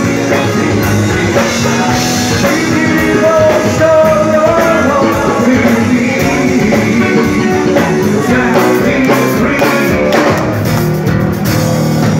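Rock band playing live, loud, with electric guitars prominent.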